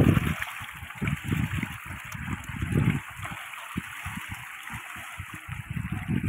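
Water splashing and churning as a crowd of netted fish thrash at the surface, a steady patter of splashes with many irregular small slaps.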